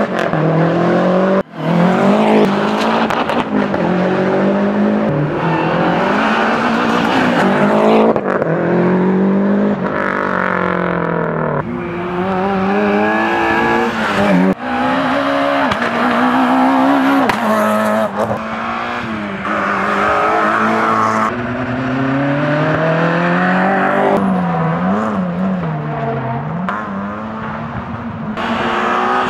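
Classic competition cars driven hard one after another, their engines revving up and falling back through gear changes, with the sound switching abruptly from one car to the next several times.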